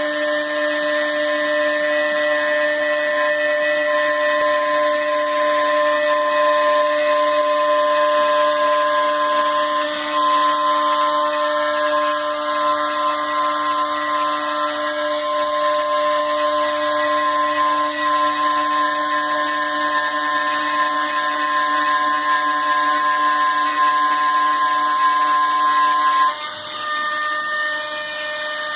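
CNC machine with NEMA 23 stepper motors running: a steady whine of several tones with a hiss above it. About 26 seconds in, the sound drops a little and the tones change pitch.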